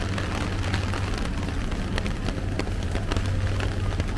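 Heavy rain falling on an umbrella: big drops hit it as a dense crackle of ticks over a steady hiss, with a steady low rumble underneath.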